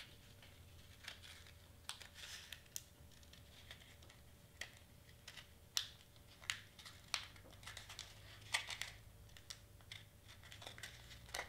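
Stiff glitter cardstock crinkling and clicking as it is bent into a small cone and its tabs are pushed into slits: light, irregular crackles and ticks.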